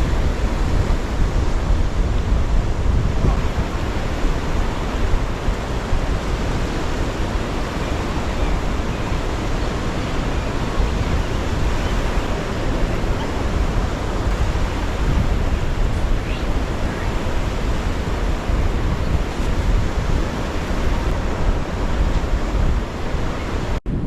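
Steady wash of surf on a beach mixed with wind buffeting the microphone, a constant rushing noise with a heavy low rumble. The sound cuts out for an instant near the end.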